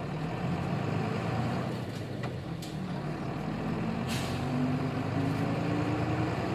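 Nissan Diesel KK-RM250GAN city bus's diesel engine running under way, its note rising slightly in the second half as it pulls. A short sharp hiss of air comes about four seconds in, typical of the bus's air brake system.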